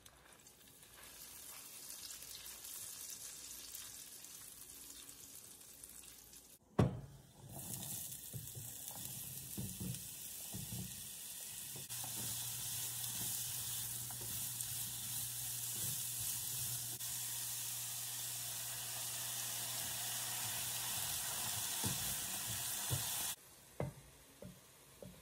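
Butter and sugar sizzling in a nonstick frying pan, stirred with a silicone spatula. A sudden loud thump comes about seven seconds in, after which diced apples sizzle louder as they are stirred, with small scrapes and knocks; the sizzle cuts off abruptly near the end.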